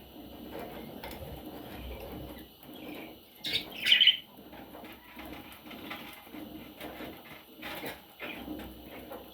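Budgerigars calling, with one loud, shrill squawk about three and a half seconds in and a few fainter chirps later, over a steady soft rustling.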